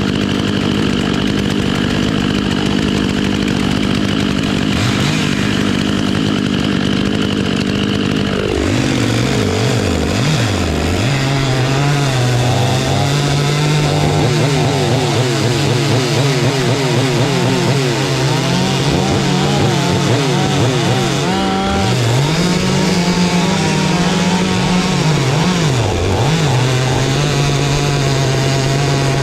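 Stihl MS 500i two-stroke chainsaw running at full throttle. About a third of the way in its pitch drops as it comes under load cutting wood, then wavers, rising and dipping a few times as the cut goes on.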